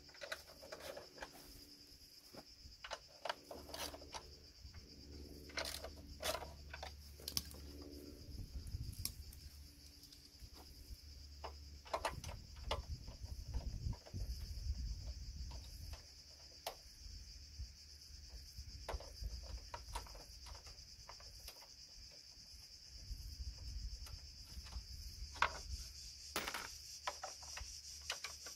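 Scattered clicks, taps and rubbing of a hand tool and metal parts being worked at a car's front end while a condenser is being removed, over a steady high-pitched buzz of insects.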